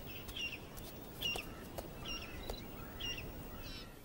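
Wild birds calling: short chirps repeated every half second or so, with a rattling trill near the end. A few faint sharp clicks sound among them.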